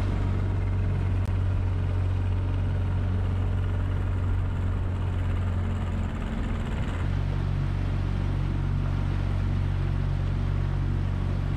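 Honda four-stroke outboard motor running steadily as an aluminium dinghy motors along, with a low engine hum over water and wind noise; the engine note changes about seven seconds in.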